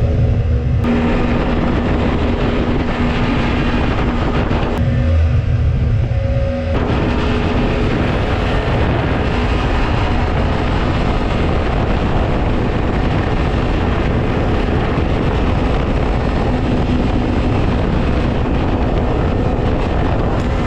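Mini jet boat's 1053cc Yamaha four-stroke engine running under power, its note mixed with the rush of the water jet. It eases off briefly about five seconds in, then picks up again.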